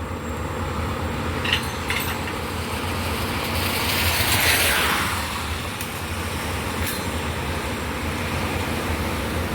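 A vehicle engine idling steadily. A hiss swells and fades about four to five seconds in, and there are a few light clicks.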